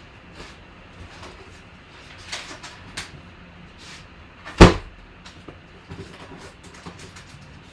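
Objects being moved and knocked about while someone rummages for an item: scattered small clicks and knocks, and one loud thump a little past halfway as things get knocked over.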